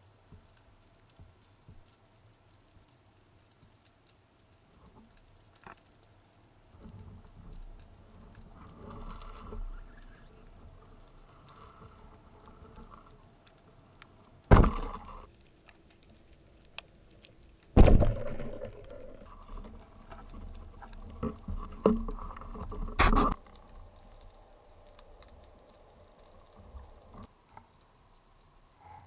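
Underwater sound around a freediver: a faint steady crackle of small clicks, with rustling and bumping from the diver's movement and the speargun being handled. Two loud sharp knocks come about halfway through, a few seconds apart, and a third follows a few seconds later.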